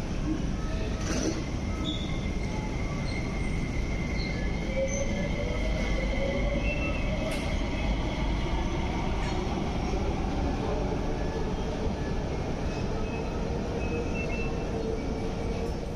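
MTR Tuen Ma line metro train pulling out of the station behind the platform screen doors: a steady rumble with thin whining tones over it.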